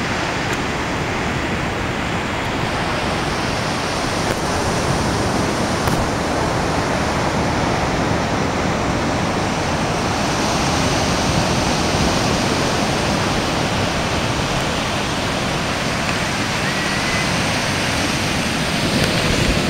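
A steady, even rushing noise with no distinct strokes or tones, cutting off suddenly at the end.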